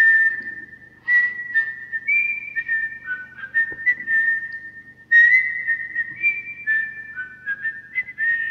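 A whistled tune of held notes stepping up and down between a few pitches, with fresh phrases starting about one, two and five seconds in, over a steady low hum.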